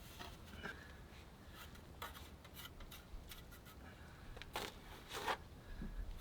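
Bricklaying work: faint scrapes and light clicks of bricks and mortar being handled, with two louder scrapes about four and a half and five seconds in.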